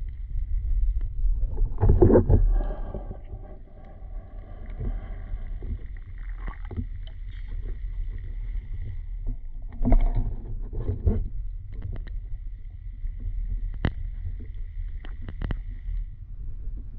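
Muffled rumble of moving water, with louder surges about two seconds and ten seconds in and a few sharp clicks near the end.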